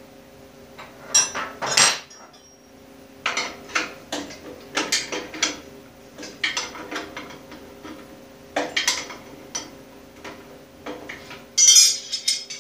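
Metal clinks and clanks from a wrench working at the nut that holds the two halves of an older Delta bandsaw's frame together, the tool knocking against the metal frame at irregular moments, with a loud clatter near the end. A steady faint hum runs underneath.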